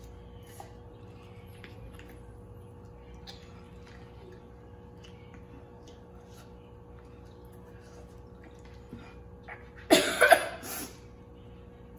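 Noodles being slurped and eaten from paper cups with forks, small wet slurps and clicks over a faint steady hum. About ten seconds in comes one loud, sudden breathy outburst.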